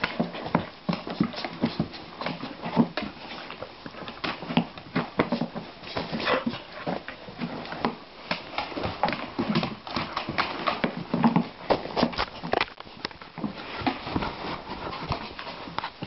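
A dog playing at close range on a blanket and wooden floor: a dense, irregular run of clicks and scuffles, with short low sounds from the dog here and there.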